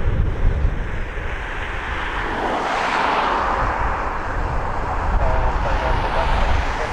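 Turbofan engines of an Embraer E190 jet airliner during its landing, a steady jet noise that swells to its loudest about three seconds in.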